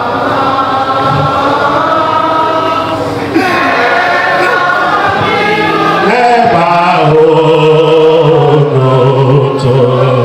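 Several voices singing a Yoruba song together, led by a man singing into a microphone; the singing grows a little louder about three seconds in.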